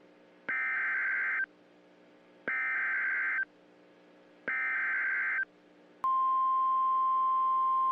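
Emergency Alert System header: three one-second bursts of buzzing data tones about two seconds apart, then a steady single high alert tone, the 1050 Hz weather alert tone, starting about six seconds in.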